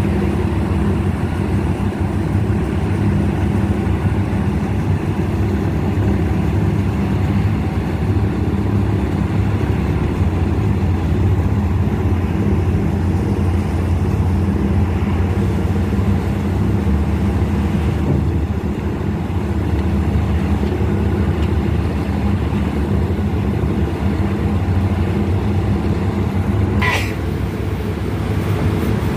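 Boat engine running steadily, a low continuous drone with water noise beneath it. A brief sharp sound cuts in near the end.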